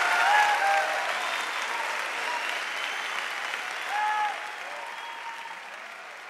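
Concert audience applauding with scattered cheers and shouts, the applause gradually dying away.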